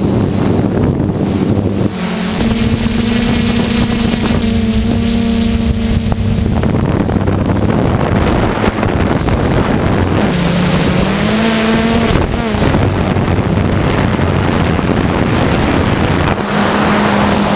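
Hexacopter motors and propellers droning, heard from the camera mounted on the craft, with wind buffeting the microphone. The pitch holds steady, dips and climbs back up about two-thirds of the way through, then settles again.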